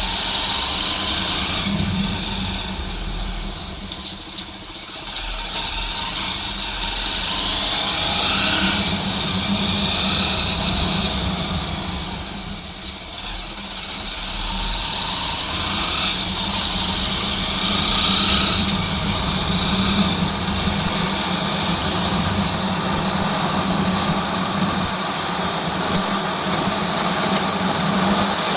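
250 cc single-cylinder trail motorcycle engine running under way as the bike is ridden. The engine eases off twice, about four seconds in and again about thirteen seconds in, then picks back up.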